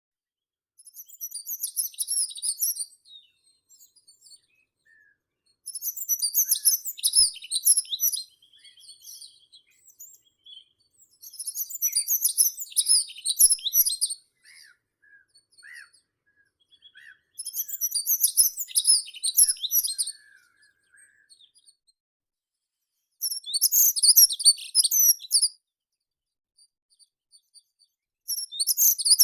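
A songbird in a meadow sings short, rapid, high-pitched song phrases of about two to three seconds each. The phrase repeats six times with pauses of about three seconds between, and faint softer calls fall in the gaps.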